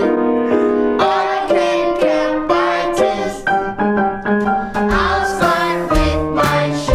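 A children's counting song, counting by twos, sung with piano accompaniment. Low bass notes come in twice in the second half.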